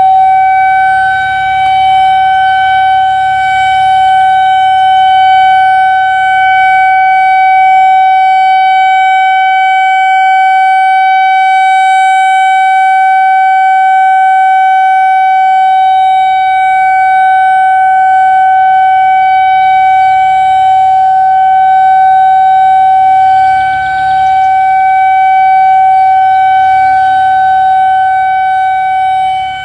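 Whelen 2000R/400R electronic outdoor warning siren sounding a loud, steady single-pitch tone during its monthly test. Its loudness dips briefly about a second in and again near the end.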